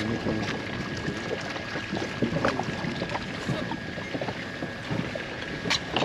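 Water lapping and slapping against the hull of an inflatable boat, with scattered light knocks, the sharpest near the end, as a hooked fish is swung aboard.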